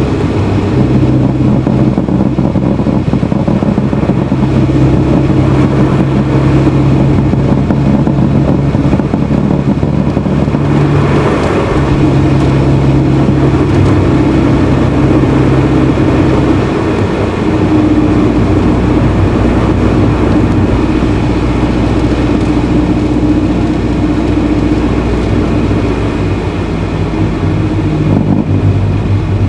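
Honda Fit (GE8) running, its 1.5-litre four-cylinder engine and road noise heard together, with a low hum that shifts pitch a few times as engine speed changes.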